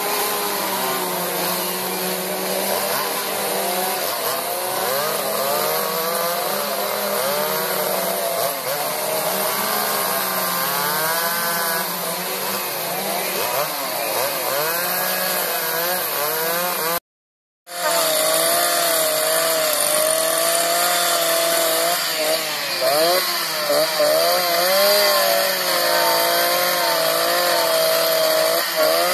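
Two-stroke chainsaws carving wood, the engines revving up and down with each cut, at times more than one saw running at once. The sound breaks off for a moment about seventeen seconds in.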